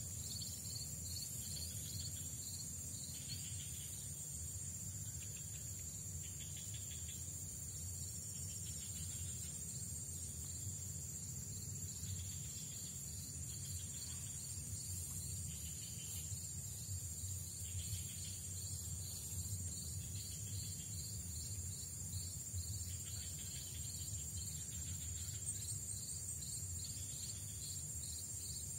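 Insect chorus: a steady high-pitched shrill with a rhythmic, evenly repeating chirp over it, above a low rumble.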